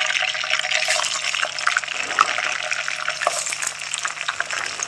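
Raw potato fries going into a wok of hot oil and deep-frying: a dense, crackling sizzle that slowly eases off.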